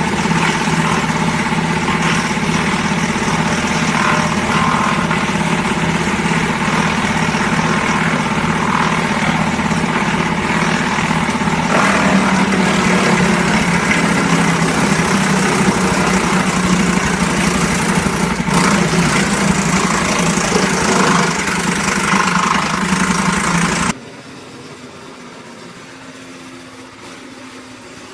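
Diesel engine of a mobile wood chipper running loudly and steadily. About twelve seconds in its sound shifts, and near the end it drops abruptly to a much quieter low hum.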